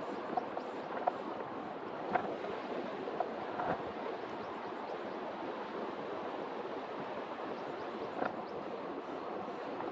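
River water rushing steadily, with a few faint clicks or knocks scattered through it.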